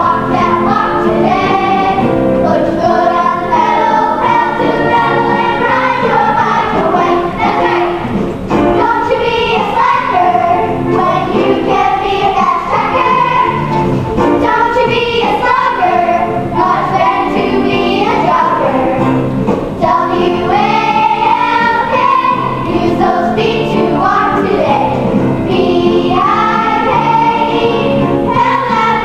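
A group of children singing together with musical accompaniment, the song running without a break.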